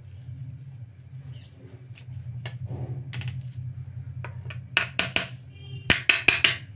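A metal spoon chopping and mixing boiled potatoes in a steel plate, clinking against the plate. Scattered clicks give way to quick runs of loud, sharp clinks in the last two seconds.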